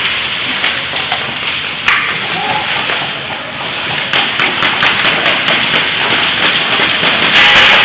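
A quick run of sharp clicks starting about four seconds in, typical of an airsoft gun firing, over a steady rushing noise. A louder burst of noise comes near the end.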